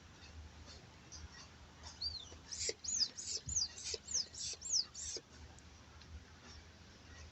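A bird singing a quick run of about eight high, down-slurred chirps, roughly three a second, lasting about three seconds.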